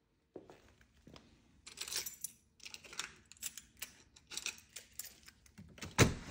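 Footsteps and handling noise: a run of light, irregular clicks and rattles, then a single loud thump about six seconds in.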